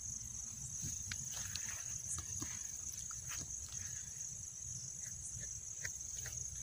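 Crickets chirring steadily at night in one continuous high-pitched band, with scattered faint clicks and a low rumble underneath.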